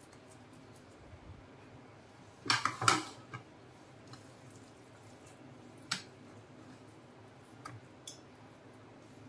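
Sharp knocks and clatter of a silicone spatula and metal pans as soft barfi mixture is scraped from a pan into an aluminium tray: a quick cluster about two and a half seconds in, then single taps around six and eight seconds.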